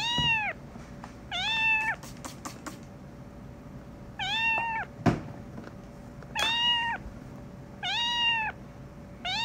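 A young kitten meowing over and over while it is restrained for treatment, about five drawn-out meows, each rising and then falling in pitch, one every one and a half to two seconds. A single sharp knock sounds about halfway through.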